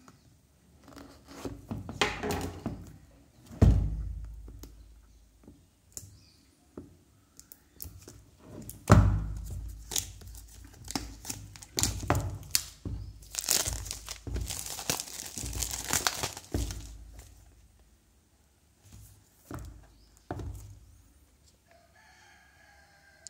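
Clear plastic shrink-wrap being torn and peeled off a cardboard phone box, crinkling and crackling, with a few heavy thumps from the box being handled. The crinkling is thickest a little past the middle, then it goes quiet near the end.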